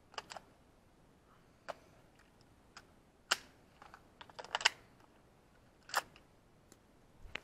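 Scattered sharp clicks and clacks of a suppressed AR-15 being handled and worked between shots, with a quick cluster of clicks about halfway through.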